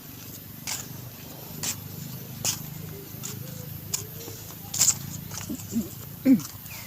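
Monkeys making a few short squeaky calls near the end. Before them come sharp clicks about once a second over a low steady hum.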